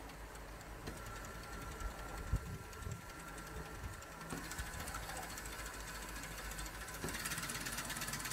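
LEGO Technic motor driving a small plastic reciprocating mechanism: a faint steady motor hum with light plastic clicks. About seven seconds in it gets louder, with a fast, even ticking.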